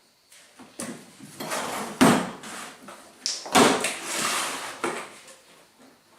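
Unpacking a cardboard box: a few knocks and thuds with rustling and scraping as the contents are handled and taken out, the loudest knocks about two seconds in and again around three and a half seconds in.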